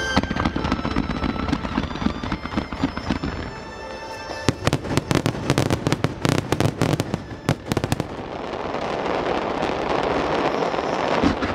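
Starmine fireworks barrage over accompanying music: a rapid run of bursts and pops, coming thickest about halfway through. In the last few seconds it gives way to a dense, rising hiss of crackling.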